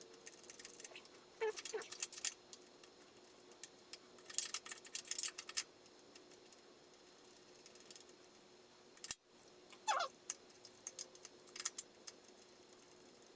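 Irregular clusters of light metallic clicks and rattles from hand tools and chain parts as the rear axle's chain adjusters are worked inward, with two short falling squeaks.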